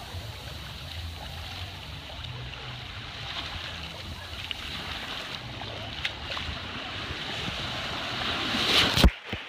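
Steady rush of water at a water park, building louder toward the end and then cutting off abruptly.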